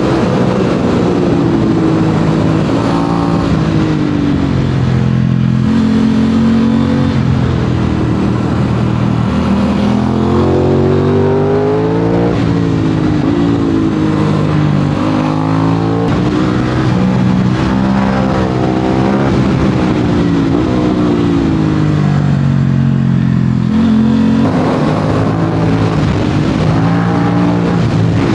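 Aprilia RS 660's parallel-twin engine through an SC-Project SC1-R aftermarket exhaust, heard on board while riding. The engine note rises and falls over and over as the bike accelerates and slows, with sudden jumps in pitch at gear changes about twelve seconds in and again near the end.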